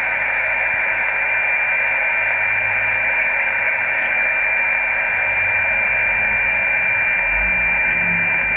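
Amateur HF transceiver receiving on 18.127 MHz in the 17-metre band: steady band-noise hiss from the receiver's speaker, with a steady high whistle running through it. This is an open receiver with no station coming through, in the gap after the operator hands over.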